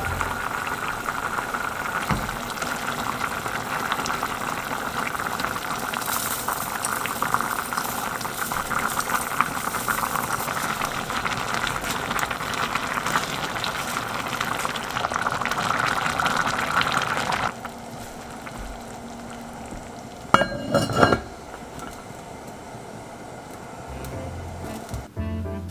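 Braised pork belly bubbling at a simmer in an enamelled cast-iron Dutch oven, a steady crackling bubbling, with a wooden spoon stirring through it. The bubbling drops away about two-thirds of the way in, followed by one brief louder noise.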